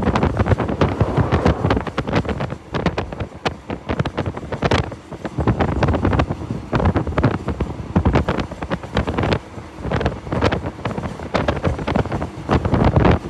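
Wind buffeting the microphone of a camera held out from a moving train, in uneven gusts, over the low running rumble of the train.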